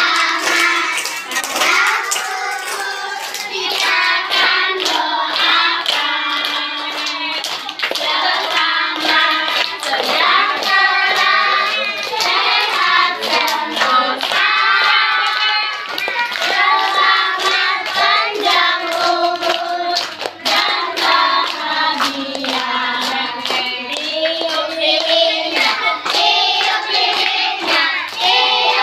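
A group of children singing together and clapping their hands along to the song.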